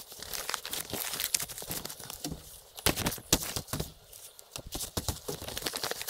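Fresh banana leaves crinkling and crackling as they are folded and squeezed into a parcel by hand, in irregular bursts, loudest about three seconds in.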